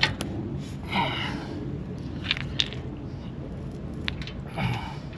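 Light metallic clicks and taps of nuts, bolts and a hand tool as exhaust mounting hardware is fitted by hand. There are two short pitched sounds, about a second in and near the end.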